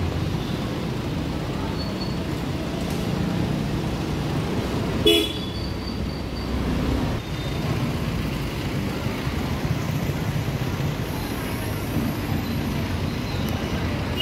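Steady low rumble of street traffic, with a few short horn toots and a sharp click about five seconds in.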